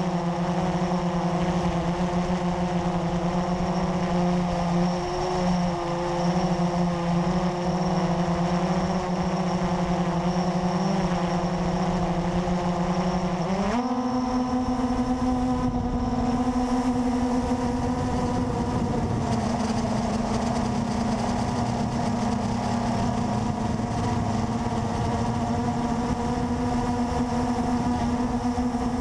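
350 QX quadcopter's electric motors and propellers humming steadily, heard from the drone itself. About halfway through, the pitch steps up quickly as the motors speed up, and it holds at the higher pitch.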